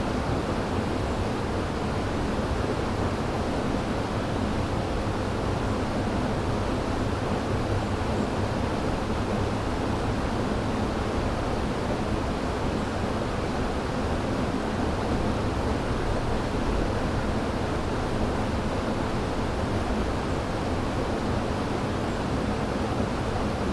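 River water running steadily: a dense, even rush of water, strongest in the low and middle range, with no change across the stretch.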